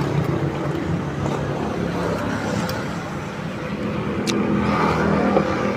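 Road traffic: the engine hum of passing vehicles, easing off about halfway through and building again near the end.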